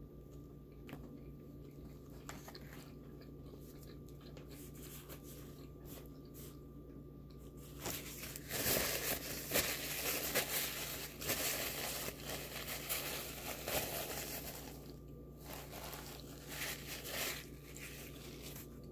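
Close-miked eating of a McDonald's Big Mac: a few faint clicks, then about eight seconds in a dense run of crunching and crinkling lasting several seconds, which thins into scattered smaller sounds near the end.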